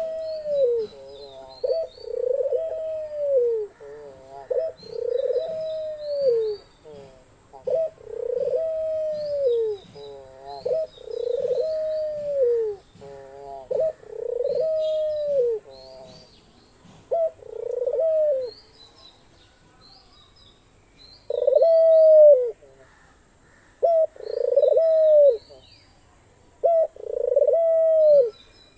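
Pet dove cooing over and over, each coo about a second long, rising then falling in pitch, with a pause of a few seconds about two-thirds of the way through. Faint high chirps of small birds come between the coos.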